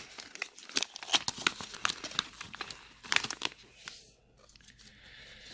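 Paper instruction sheet being unfolded and handled, a run of quick crinkles and rustles that dies away after about four seconds.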